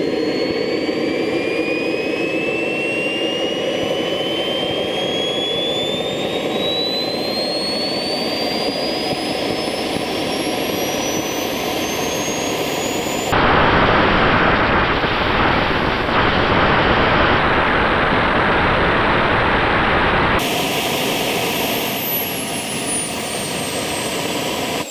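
JetCat microjet turbine spooling up on its first run-up to idle: a steady rush of exhaust with a thin whine climbing steadily in pitch. About thirteen seconds in it turns into a louder, rougher roar for about seven seconds, and near the end the whine starts to fall in pitch as the turbine winds down.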